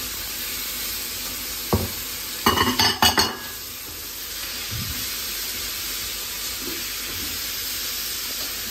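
Prawns and freshly added chopped tomatoes sizzling in a hot frying pan as a metal spatula stirs them. The spatula knocks once, then clatters against the pan a few times around the three-second mark.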